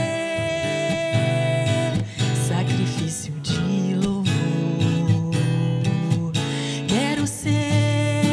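Worship song with acoustic guitar and a singing voice. A long note is held for about the first two seconds, and rising slides come near the end.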